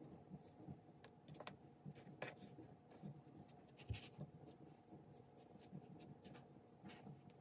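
Near silence with faint scratches and small taps of a paintbrush being worked in a small plastic cup of paint wash and dabbed on a foam wall, with a soft thump about four seconds in.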